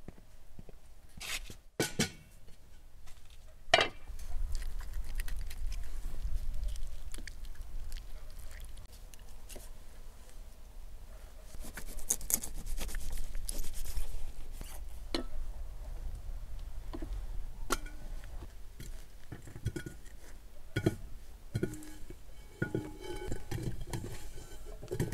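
Food-preparation sounds: a knife cutting into a river eel on a covered table, with scattered clicks and knocks, and metal clinks of a pot as peeled potatoes are tipped into it near the end, over a low steady rumble.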